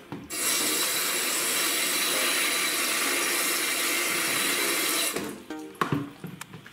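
Kitchen tap running water into a plastic tub of cut yam and pumpkin pieces, a steady rush that is shut off about five seconds in. A few light knocks follow.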